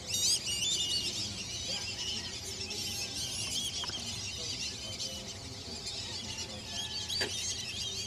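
Dense chorus of many birds calling at once, high chirps and twitters overlapping continuously, with a single sharp click about seven seconds in.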